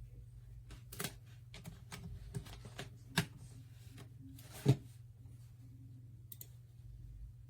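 A few scattered light clicks and taps over a low steady hum, the two loudest about three and four and a half seconds in.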